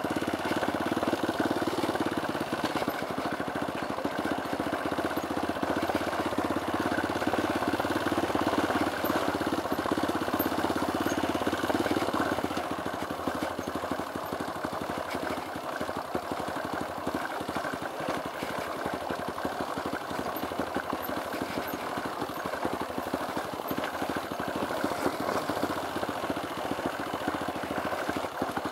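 Dirt bike engine running steadily as the bike rides along a rough dirt track, a little quieter from about twelve seconds in.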